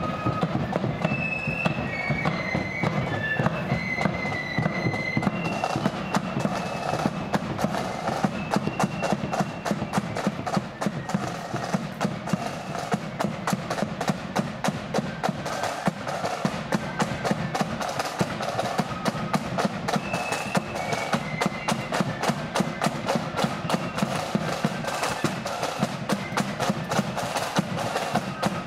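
Marching flute band's drums beating a steady march rhythm, the snare drums sharp and clicking. A few high flute notes sound over the drums in the first few seconds.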